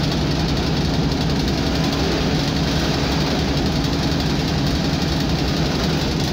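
Interior sound of a ČSD M262.1 diesel railcar running at speed: a steady engine drone mixed with wheel and rail noise, heard inside the passenger compartment.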